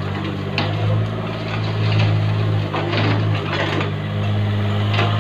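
Mini excavator's diesel engine running steadily as the arm and bucket work, with several sharp knocks and scrapes of the bucket against gravel and rubble.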